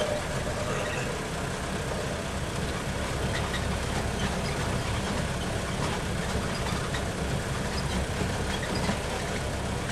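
Engine of a tour tram running steadily while it drives along a dirt track, heard from a seat inside the open-sided vehicle along with road and body noise.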